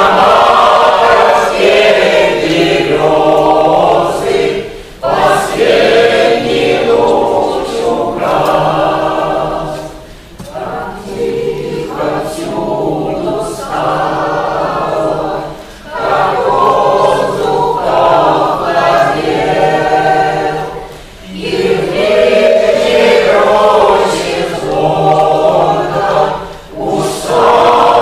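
A mixed choir of men's and women's voices singing together, in sung phrases of about five seconds, each followed by a short breath break.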